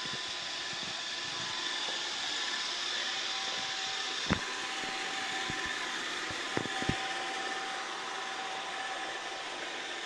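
iRobot Roomba 690 robot vacuum running across a hardwood floor: a steady whir of its suction fan and brushes with a thin, steady high whine. A sharp knock comes about four seconds in, and two more close together near seven seconds.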